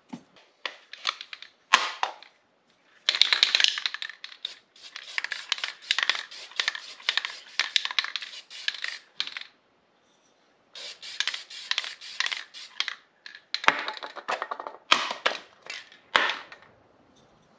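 Aerosol can of high-heat spray paint hissing in several bursts, the longest about six seconds, as a heat-lamp bulb is coated. A few short clicks come first.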